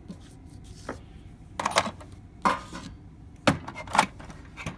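Small metal hand tools clinking and knocking against each other and the drawer of a machinist's toolbox as they are handled: about six sharp, separate clinks at irregular intervals.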